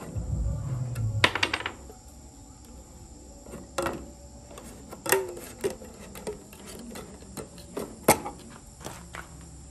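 A metal scraper blade prying at the lid of a metal paint tin: handling and scraping, with a few sharp metallic clicks and clinks spaced a second or more apart as the blade catches and levers the lid rim.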